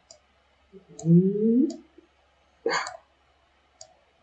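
A few sharp computer mouse clicks, with a brief rising hum from a voice about a second in and a short vocal sound near the end of the second third.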